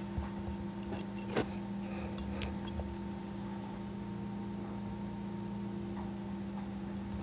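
A few small, sharp clicks and ticks from steel tweezers handling a strip of masking tape on a tiny plastic model aircraft: one about a second and a half in, then a quick cluster a second later. A steady electrical hum lies underneath.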